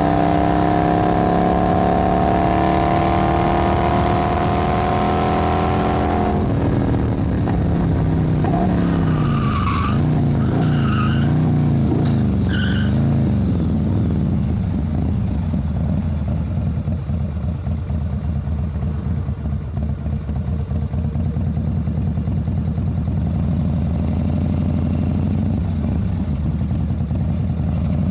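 A motor vehicle engine revving. Its pitch rises steadily for about six seconds, then swings up and down several times, then settles into a steady low rumble.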